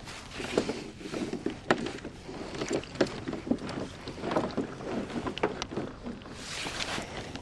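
Irregular knocks, clunks and rattling on a plastic sit-on-top kayak as anchor gear is handled and deployed, over a steady hiss of wind on the microphone.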